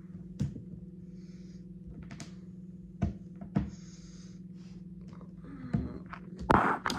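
Scattered light knocks and clatters of a clear plastic storage case being handled, with a louder clattering scrape near the end, over a steady low hum.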